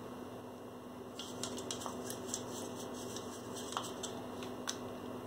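Faint scattered ticks and taps of paint brushes and plastic paint cups being handled, over a steady low hum.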